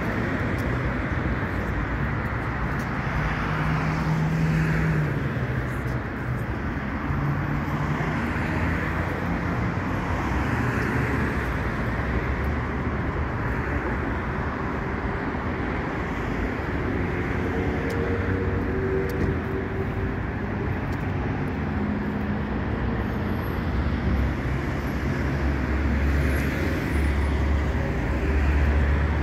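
Steady city street traffic: cars and other motor vehicles driving past on the road, an even rush of tyres with engine hum rising and falling as they pass.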